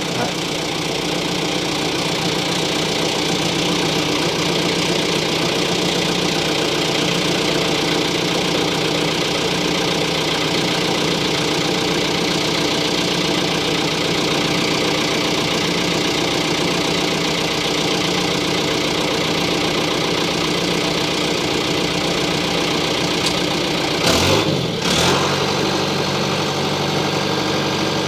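John Deere 310G backhoe's diesel engine idling steadily after being restarted, running as a test of whether it stays running now that its fuel hose has been reconnected. A brief clattering noise comes about 24 seconds in.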